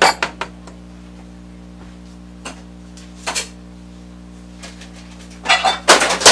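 Kitchen utensils knocking against a metal soup pot: a few last sharp knocks at the start, then a steady low hum with a couple of faint clicks, and near the end a loud clatter of several knocks with rustling handling noise.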